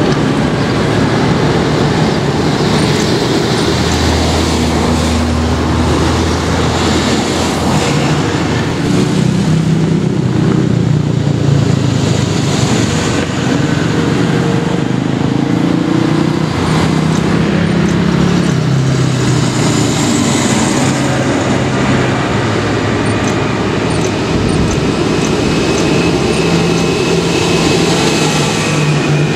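Modern farm tractors and cars driving past in a steady stream: diesel engine noise and tyre noise, with engine tones shifting as each vehicle goes by and a deep engine hum a few seconds in.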